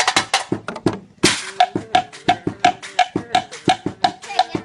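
Homemade percussion instruments playing a fast ramwong rhythm: quick, even tapping strokes, about six a second, each with a short pitched ring. The beat breaks off briefly just before one second in, then comes back with a short hissy crash.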